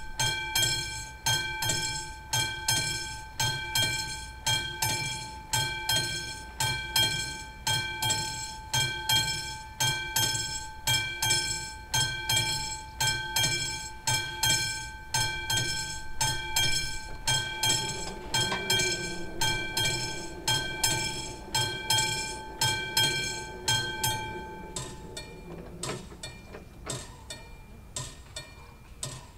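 Classic level-crossing warning bell ringing at about two strokes a second. A low whirr joins partway through as the barrier arms lower, and about 25 s in the bell's ringing stops, leaving only fainter clicks.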